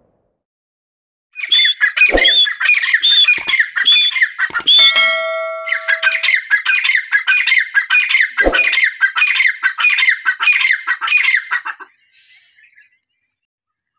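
Grey francolin (dakhni teetar) calling: a long run of loud, shrill, repeated notes at about two to three a second, starting shortly after the beginning and stopping abruptly about 12 seconds in. Two dull knocks sound under the calls.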